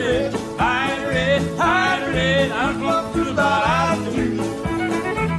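Live country band playing, with steady bass notes and rhythm guitar under a sliding, heavily vibratoed lead melody line.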